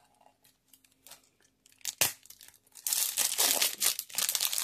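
Wax-paper trading-card pack being torn open. It is mostly quiet for the first two seconds, then there is a sharp tear about two seconds in, followed by continuous crinkling of the wrapper from about three seconds on.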